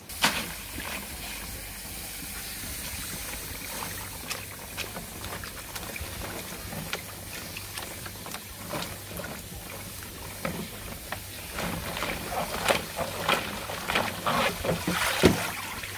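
Ice water sloshing and splashing in a plastic tub as gloved hands stir freshly boiled Hokkai shrimp and lift out the draining basket, the chilling step that firms the shrimp. The splashing grows busier near the end, with one sharp knock just before the end.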